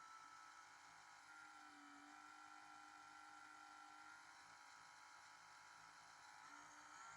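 Near silence: a faint steady hum, wavering slightly in pitch.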